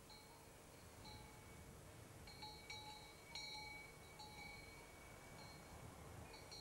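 Faint cowbells clinking and ringing irregularly, with a few clearer strikes near the middle, over near silence.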